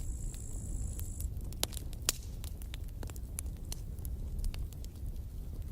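Wood campfire burning: irregular sharp crackles and pops over a steady low rumble of the flames.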